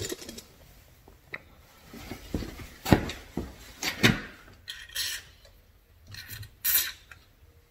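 Aerosol can of white lithium grease sprayed through its straw into a car door hinge: two short hisses in the second half, among scattered clicks and knocks of the can and straw against the door.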